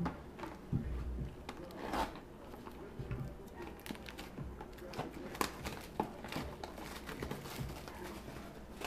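Plastic wrap on a sealed trading card box being torn and crinkled off, with irregular clicks and light knocks as the cardboard box is handled.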